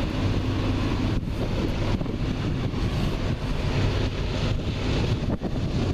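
Wind buffeting the microphone in a steady rush, with a faint low drone underneath from the distant approaching CSX diesel freight locomotive.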